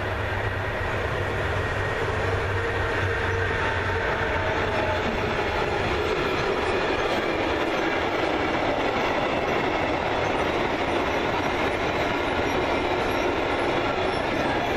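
Freight train of covered sliding-wall wagons rolling past close by behind a red DB electric locomotive: steady wheel-on-rail noise, with the locomotive's low hum fading after the first few seconds as the wagons follow.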